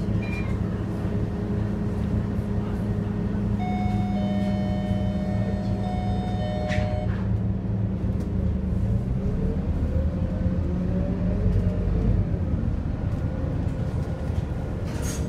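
Scania K230UB city bus's five-cylinder diesel engine running with a steady drone, heard from inside the passenger cabin. From about nine seconds in its pitch rises as the bus pulls away and gathers speed. A steady high tone sounds for about three seconds in the middle.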